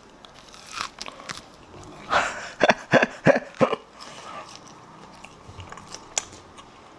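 A person biting into and chewing a piece of deep-fried meat in a starch and egg-yolk batter. A couple of crisp bites come about a second in, then a quick run of loud crunches, then quieter chewing. He finds this batter not crisp at all.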